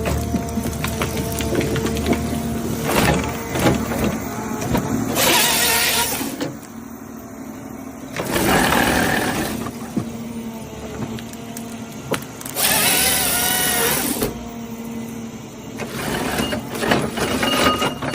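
Tree-cutting machinery working: engine running steadily, with three louder bursts of cutting noise, the last one wavering in pitch.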